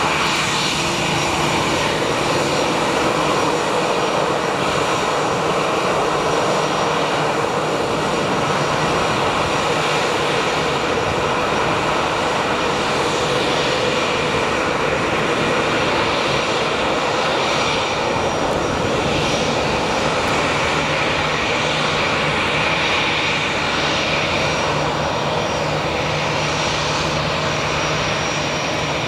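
Airbus A320-216's twin CFM56 turbofan engines running at low taxi power as the airliner taxis: a steady jet whine and rush that holds level throughout.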